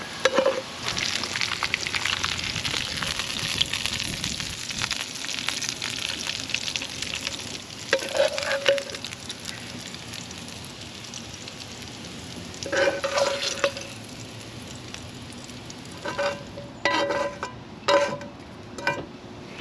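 French fries sizzling and crackling in hot oil on their second fry for crispness. The sizzle is loudest in the first several seconds and then dies down. Short ringing metal clanks of cookware come about eight seconds in, again around thirteen seconds, and several times in quick succession near the end.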